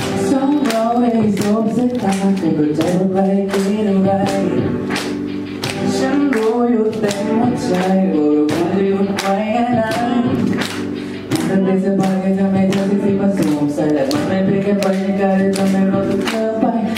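A man singing a Thai pop ballad live into a handheld microphone over an amplified backing track with a steady beat of about two strokes a second.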